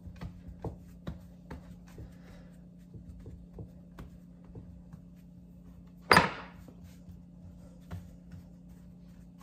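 Kitchen handling sounds: scattered light clicks and taps of utensils and dishes, with one sharp, much louder clatter about six seconds in, over a steady low hum.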